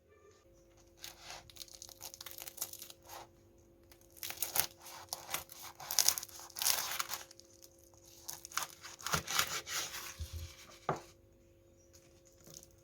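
Irregular crackling, tearing rustles from something being handled, coming in bursts for about ten seconds, with a faint steady hum underneath.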